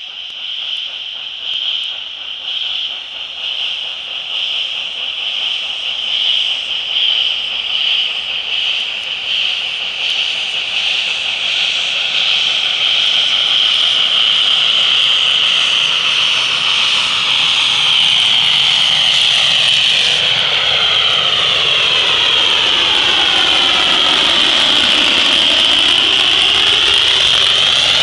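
ČSD class 354.1 tank steam locomotive 354.195 pulling away with its train and hissing loudly, steam venting from its open cylinder drain cocks. The hiss pulses with the exhaust at first, then grows into a continuous loud hiss as the engine draws near and passes close.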